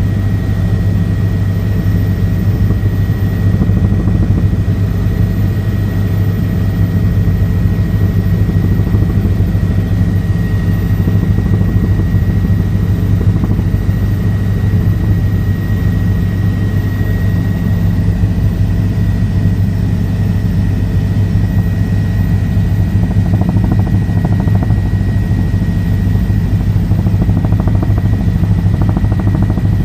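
Helicopter in flight: a loud, steady low drone of rotor and engine, with a thin constant high tone above it.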